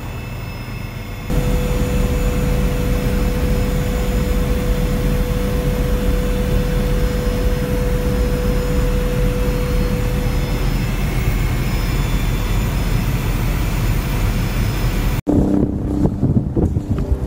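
Steady aircraft engine noise heard from inside the cabin, with a thin steady whine that fades out about ten seconds in. Near the end the sound cuts to gusty wind buffeting the microphone.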